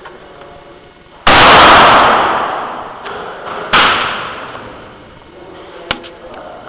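Two shots from a .22 LR pistol, about two and a half seconds apart, each loud and sharp with a long echoing tail, the first the louder. A light click follows near the end.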